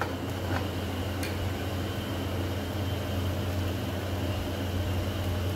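Steady low mechanical hum, like a kitchen fan or appliance motor, with two light clicks about half a second and a little over a second in.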